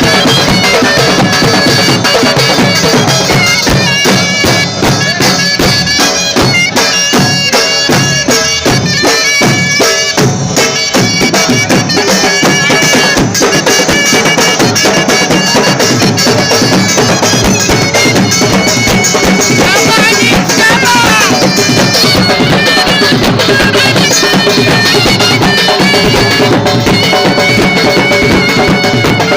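Surna, the Baloch double-reed shawm, playing a fast, ornamented Lewa melody without a break, over drums.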